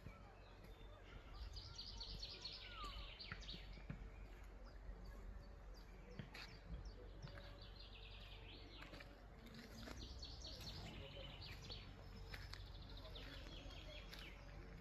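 Birds singing, with quick runs of repeated chirps and trills, over a faint, steady low rumble.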